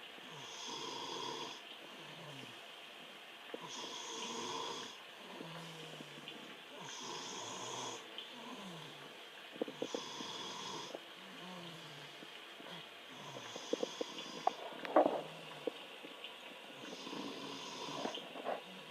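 Snoring, six snores about every three seconds, each lasting about a second. A few sharp clicks or taps fall in the middle, the loudest about fifteen seconds in.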